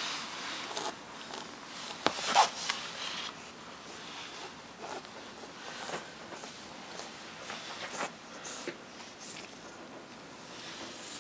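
A cat rubbing its face against and mouthing a fabric catnip pillow on carpet. The cloth and carpet give an irregular scratchy rustle with short clicks, loudest about two seconds in.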